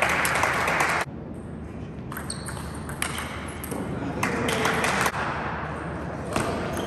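Table tennis ball bouncing and ticking a few separate times between points, with two stretches of rustling hiss.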